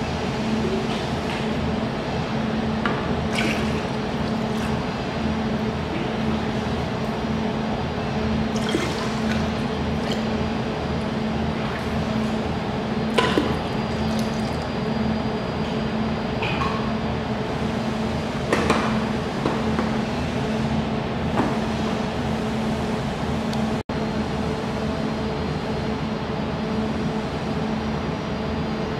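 Water poured into a laser welder chiller's cooling-water tank, running and splashing onto the coiled metal pipe inside. Underneath is a steady machine hum, and a few sharp knocks come through along the way.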